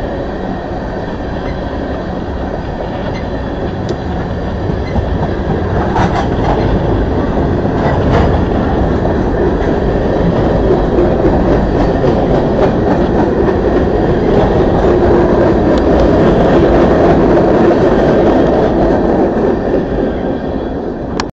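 Freight train tank cars and covered hoppers rolling past on the rails: a steady rumble of steel wheels on track with a few sharp clicks and clanks. The rumble eases slightly as the last car goes by, then cuts off suddenly.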